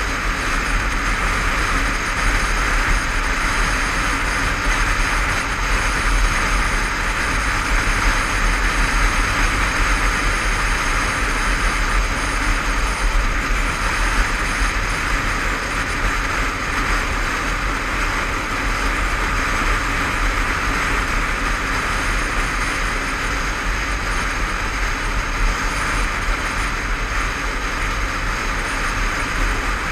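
Steady rush of wind and road noise from a motorcycle cruising at speed, heard from a helmet-mounted camera, with the Honda CBF500's parallel-twin engine running steadily underneath.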